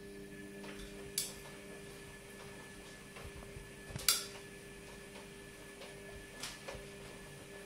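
A steady low hum with a few sharp, light clicks, the loudest about four seconds in.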